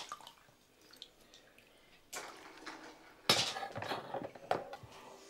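Small metal pieces being washed by hand in a plastic bowl of water: a splash about two seconds in, then water sloshing and metal clattering against metal, with a sharp clink a second later.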